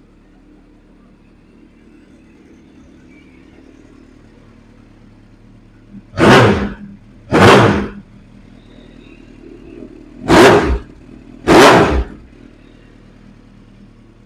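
2007 Suzuki GSX1400's inline-four engine idling through its aftermarket Black Widow exhaust. It is revved four short times in two pairs, about six and about ten seconds in, each rev rising and dropping straight back to idle.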